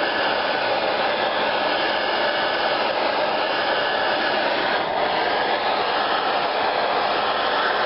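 Electric heat gun blowing steadily, a constant rush of fan and air. It is heating the crankshaft end to free a bearing that is stuck on it.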